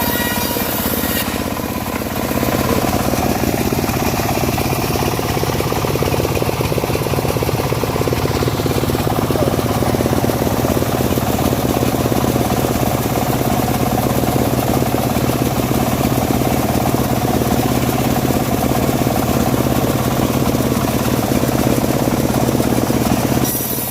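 Engine-driven home-built bandsaw mill running steadily while its blade saws through a dry teak log; the sound thickens about two seconds in.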